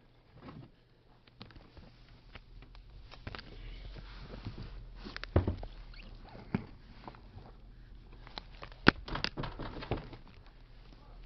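Scattered knocks, clicks and rustling from people moving through a room and handling things during a search, with a sharp knock about nine seconds in as the loudest sound.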